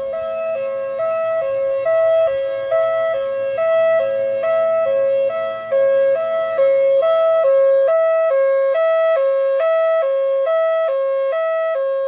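Federal Signal Thunderbolt 1003 outdoor warning siren sounding its Hi-Lo fire signal: a loud high and low tone alternating steadily, each held about a third of a second. This two-tone signal is the fire call, sounded here as a weekly test.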